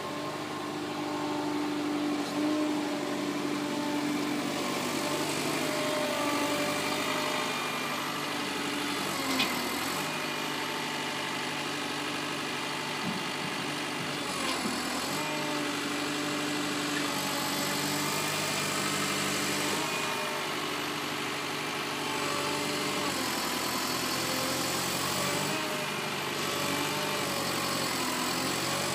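Menzi Muck A91 walking excavator's diesel engine running steadily while its hydraulics move the legs and boom, the engine note dipping briefly several times as the hydraulics take load. A single sharp click about nine seconds in.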